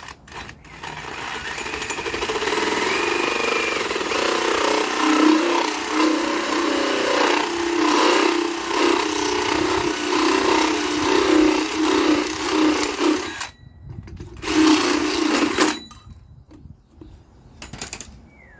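Cordless power drill drilling: a long continuous run of about thirteen seconds, then a brief stop and a second short burst.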